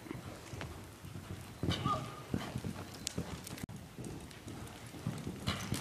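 Hoofbeats of a grey horse cantering on soft arena sand: a run of dull thuds with some sharper clicks.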